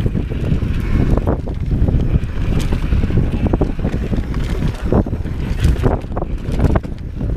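Wind buffeting the camera microphone on a fast mountain bike descent down dirt singletrack, a steady low rumble. Scattered sharp clicks and knocks come from the bike rattling over bumps.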